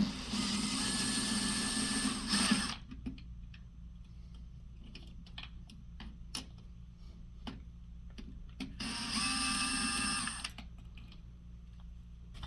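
A screw and nut being undone with a tool, heard as two steady mechanical whirring runs of about two seconds each, one at the start and one about nine seconds in, with light clicks of handling between them.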